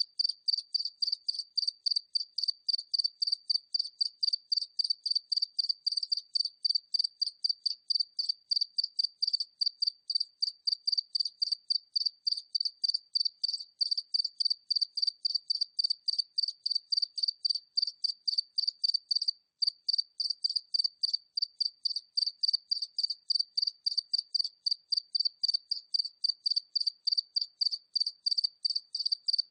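A single cricket chirping steadily at medium distance, a high-pitched chirp repeating about two to three times a second, with one brief break about two-thirds of the way through.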